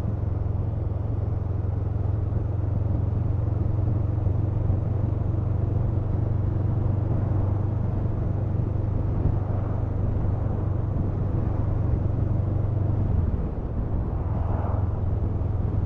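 Honda CMX500 Rebel's parallel-twin engine running steadily as the motorcycle is ridden, with road and wind noise. The low engine note briefly drops and changes about 13 seconds in.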